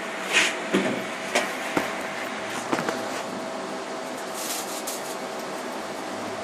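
Homemade CNC hot-wire foam cutter running with a steady hum, with several sharp knocks and clicks in the first three seconds and a short hiss about four and a half seconds in.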